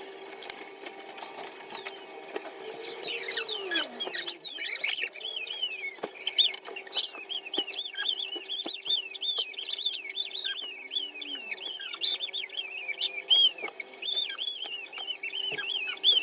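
Rapid, high-pitched chirping, like small birds, repeating several times a second and growing busier from about five seconds in, over a steady low hum.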